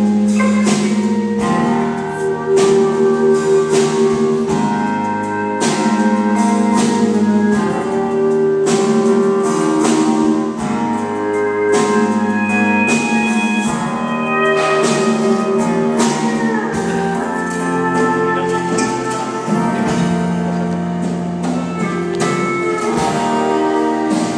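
Live acoustic guitar music: chords strummed and left ringing, with a steady run of changing notes.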